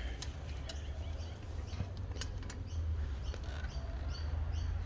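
A small bird chirping in short, evenly spaced notes, more and more often in the second half, over a steady low hum, with a few sharp clicks earlier on.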